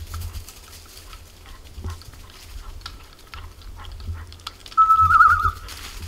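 A dog whistle blown once near the end, a held high note that breaks into a rapid warble like a pea whistle's trill. Under it, footsteps crunch through dry leaves and twigs, with wind rumbling on the microphone.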